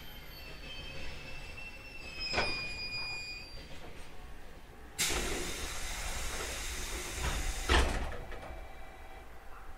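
An 811 series electric train standing with its air system at work. Faint high whining tones and a click come first. Then, about halfway through, compressed air hisses out suddenly for about three seconds, ending in a heavy thump.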